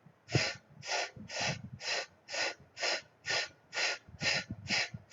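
A woman repeatedly sounding out the letter F's phonics sound, a breathy unvoiced 'fff', about ten times at a steady pace of roughly two a second.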